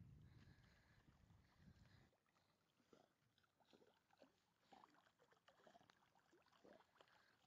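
Faint water splashing and sloshing from a Labrador retriever paddling through lake water, in short irregular strokes. A low rumble fills the first two seconds.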